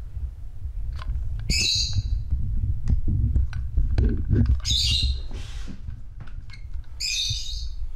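A bird squawking three times, each squawk short and high-pitched, a couple of seconds apart. Clicks, knocks and a low rumble come from the loaded backpack being handled and set down.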